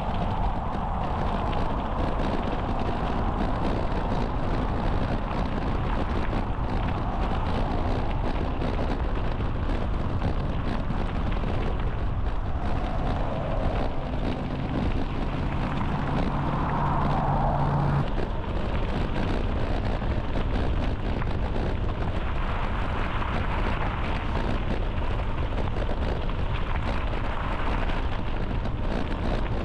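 Wind buffeting the microphone over the steady rolling noise of a bicycle being ridden along a trail path, with a heavy low rumble throughout.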